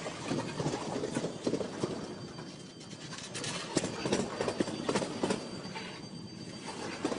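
Rail wheels of a Triple Crown RoadRailer train (highway trailers on rail bogies) clacking over a diamond crossing: a run of irregular knocks, easing off briefly about three seconds in and again near the end.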